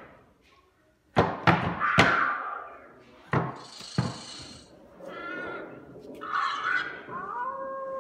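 Sound effects played by an escape-room puzzle: several sharp knocks and thuds, a short hissing burst about four seconds in, then a rising tone that holds steady near the end.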